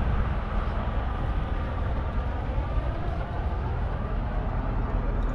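Steady low rumble of vehicle noise, with faint slow sweeps in pitch.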